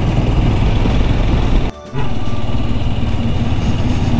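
Motorcycle engine running while riding, a steady low hum; the sound dips sharply for a moment a little under two seconds in.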